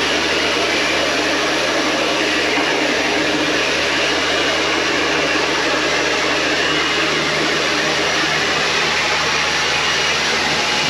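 Kärcher K2 electric pressure washer running, its motor humming steadily under the loud, even hiss of the water jet spraying onto the car.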